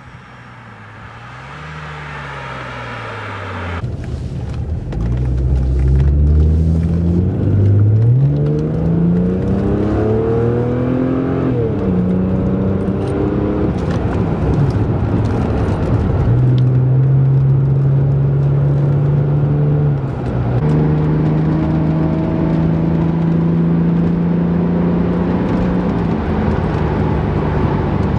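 1995 Jaguar XJR X300's supercharged 4.0-litre straight-six through a stainless steel sport exhaust. First the car is heard approaching along the road. Then, heard from inside the cabin, it accelerates with its note rising, drops at a gear change and settles into a steady cruise.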